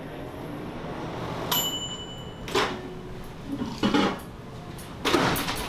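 Microwave oven control panel: a click and a short high electronic beep about a second and a half in, then a clunk with a lower hum. After that come knocks and rustling as things are handled on the shelf beside it.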